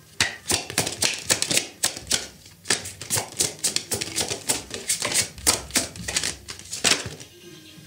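A tarot deck being shuffled and handled: a quick, irregular run of crisp card clicks and snaps that stops about seven seconds in.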